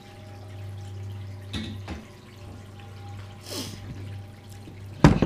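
An AR-15 upper receiver and other metal rifle parts handled on a countertop: two light knocks, a brief rustle, then one sharp loud knock near the end as the upper is picked up. A low steady hum runs underneath.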